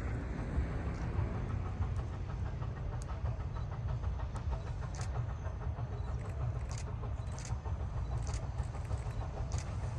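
Narrow-gauge train rolling along the track: a steady low rumble with scattered sharp metallic clicks and clanks.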